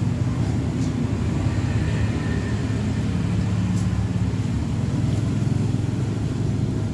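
A steady low rumble like a running motor vehicle engine, with a few faint clicks.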